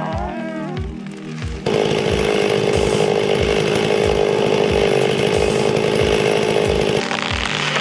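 A chainsaw running steadily, starting about two seconds in and cutting off near the end, over background music with a steady beat.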